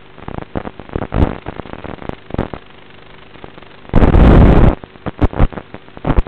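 Crackling and bursts of static on the audio of an analog FPV video link as the signal breaks up, with the loudest burst of noise at about four seconds in, over a faint steady hum.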